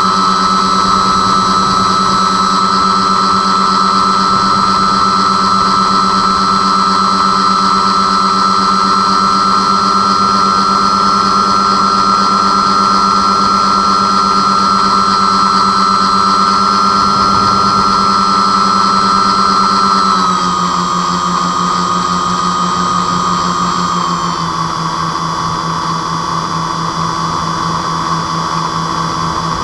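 The twin motors and propellers of an RC airplane whine steadily in flight, heard close up from the plane's onboard camera. The pitch and loudness step down about two-thirds of the way through and again a few seconds later, as the throttle is eased back.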